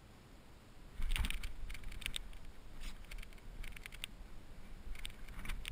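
Irregular clicking and ticking starting about a second in, from the fishing rod and reel being worked against a hooked fish.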